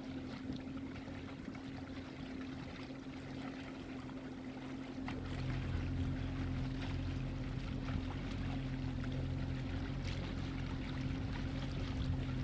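Boat engine running with a steady low hum that grows louder about five seconds in, over a wash of wind and water noise.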